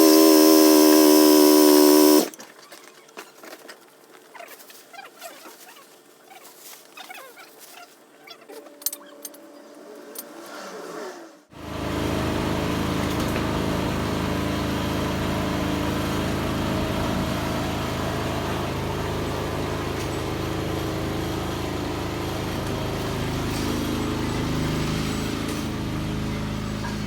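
Honda 400X's parallel-twin engine idling steadily after an oil change. It cuts in abruptly about 11 seconds in, after a loud humming tone for the first two seconds and a stretch of faint clicks and handling noises.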